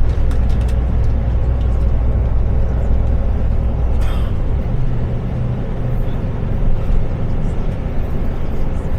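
Tour coach running along the road, heard from inside the cabin: a steady low engine drone with road noise. The engine note shifts about halfway through.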